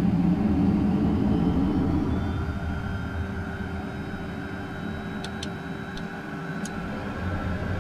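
Steady rumble and whine inside the cockpit of a Beechcraft Premier I jet, with a thin higher whine coming in about two seconds in. Four light clicks near the end as the pilot works switches on the panel above the instruments.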